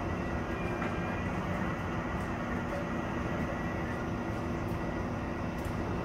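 Boom garbage truck's engine running at a steady drone, with a thin steady high whine above it, while the hydraulic crane arm lifts a large waste bag.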